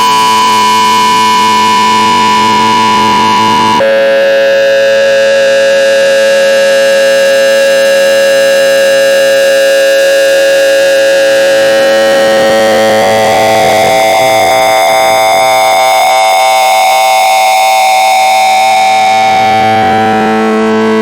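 Loud, harsh electronic tone with many overtones, holding one pitch, then dropping abruptly to a lower pitch about four seconds in. It holds there, then glides slowly upward through the second half and shifts pitch once more near the end.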